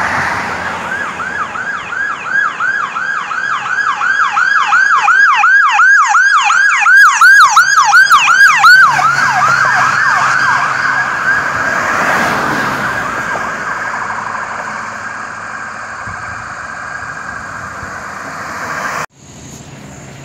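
Ambulance siren on a fast yelp, about four sweeps a second, growing loud as it passes close by, then dropping in pitch and fading as the ambulance drives away. It is cut off abruptly near the end.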